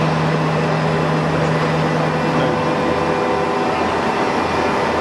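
UNION BFP 130 CNC floor boring mill running: a steady mechanical hum with several steady tones. A low tone stops about halfway through while the rest of the hum carries on.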